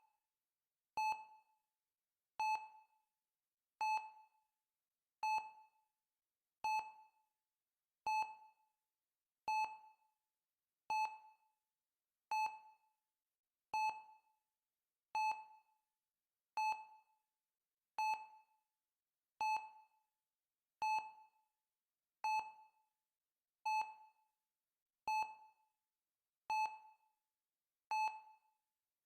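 Heart-rate monitor sound effect: a short, pitched beep repeating evenly about once every 1.4 seconds, each beep fading quickly into silence before the next, the steady pulse tone of a patient monitor.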